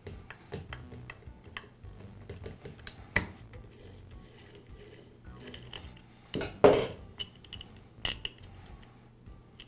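Small metal clicks and clinks of a long hex key turning and lifting out the cap screws of a Ridgid finish nailer, with sharper metal clinks about three, six and a half and eight seconds in.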